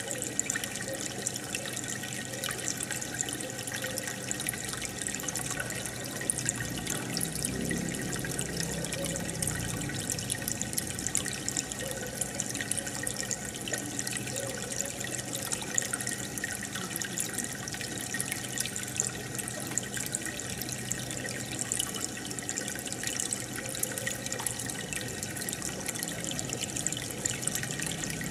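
Aquarium water bubbling and trickling steadily, air bubbles and filter water splashing at the surface in a constant fizzing crackle, with a faint low hum underneath.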